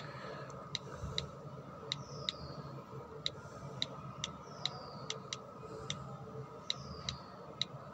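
Phone on-screen keyboard key-press clicks as text is typed: short light ticks at an uneven typing pace, about two or three a second, over a faint steady hum.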